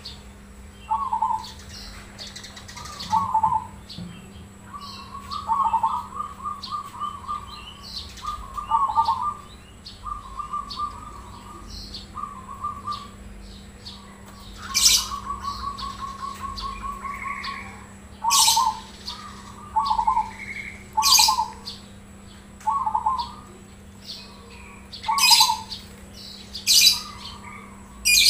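Zebra dove (perkutut) cooing: short rolling coos repeated every second or two, with a few longer trilled phrases. Several short, sharp, high sounds cut across the cooing in the second half.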